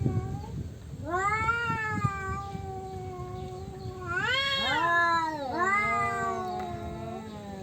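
Two tomcats yowling at each other in a territorial standoff: long, wavering, drawn-out calls, the first starting about a second in, then two voices overlapping in a higher, louder exchange past the middle.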